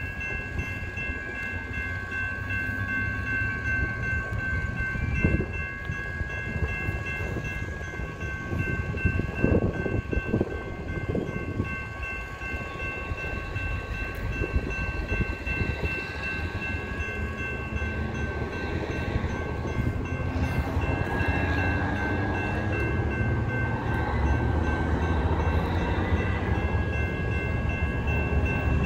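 Railroad grade-crossing bell ringing steadily while the signals flash. A low rumble builds up through the second half as the train approaches.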